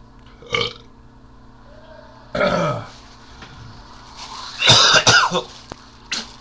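A man burping several times: a long burp that falls in pitch about two and a half seconds in, and a louder one near five seconds, with short ones before and after.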